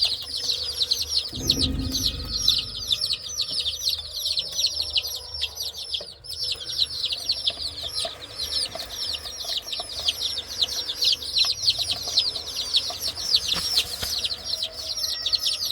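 A crowd of baby chicks peeping without pause, many short high-pitched falling chirps overlapping one another. A dull low thump about a second and a half in.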